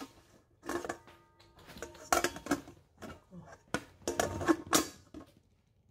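Clear plastic splash guard clattering against a stainless steel mixing bowl as it is handled and lifted off, in three short bursts of clicks and knocks, the bowl ringing faintly after the first.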